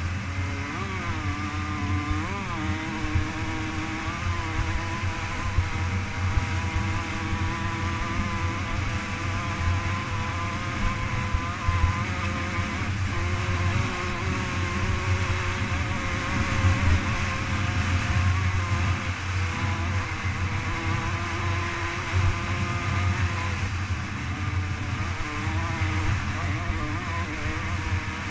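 Off-road dirt bike engine running hard at speed, heard from on board the bike, over a constant rush of noise. The engine note dips and climbs back twice in the first few seconds as the throttle is eased and reopened, then holds mostly steady.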